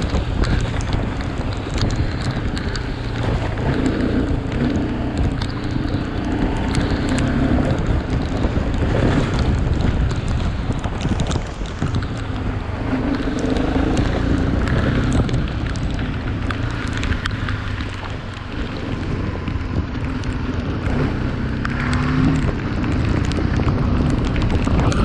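Motorcycle being ridden, with heavy wind buffeting the microphone; the engine's note rises and fades every few seconds.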